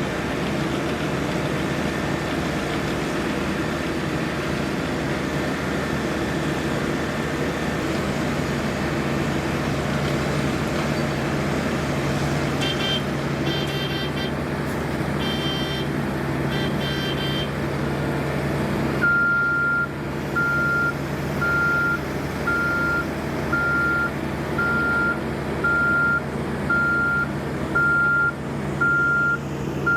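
Heavy diesel construction machinery running steadily, with short bursts of high chirping beeps in the middle. About two-thirds of the way in, a vehicle reversing alarm starts beeping, about once a second.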